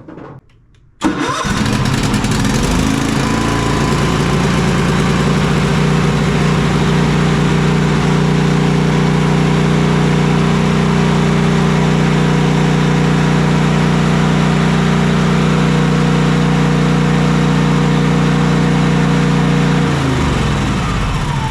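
Cub Cadet XT2 riding mower's 679cc fuel-injected MTD engine starting about a second in, catching right away and revving up to a steady run, then shut off near the end and winding down. It starts and keeps running with the seat safety switch taped closed, the seat switch being the suspected cause of the stalling.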